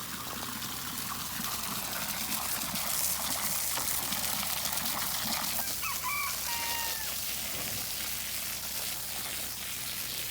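A rooster crows once, about six seconds in, over a steady hiss.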